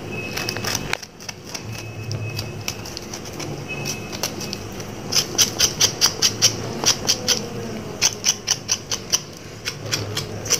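Quick scraping strokes on a raw goat trotter as hair is scraped off, a scattered few at first, then a fast run of about five rasps a second from about five seconds in.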